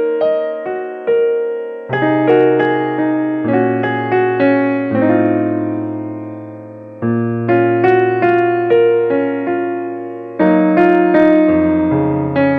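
Background piano music: a gentle melody of struck notes that ring and fade, over bass chords that change every second or two.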